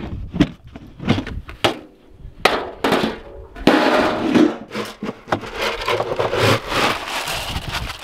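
Snow brushed and knocked off a galvanized steel trash-can lid with a few sharp knocks, then the metal lid clattering and ringing as it comes off about four seconds in, followed by a scoop rustling through grain feed in the can.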